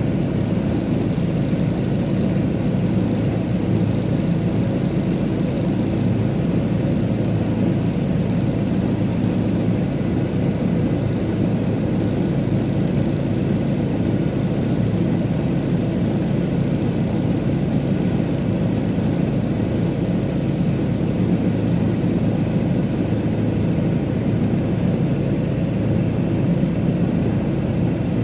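Diesel engine of a JCB backhoe loader running steadily at low revs, a constant low hum.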